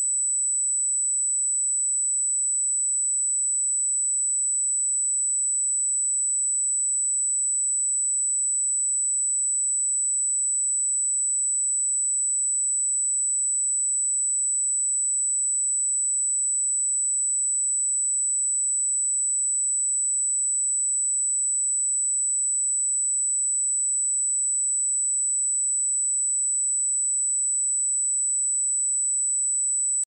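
A steady, continuous pure sine-wave test tone at 7968 Hz, a single high-pitched whistle-like note held at constant level, used for checking speakers and headphones.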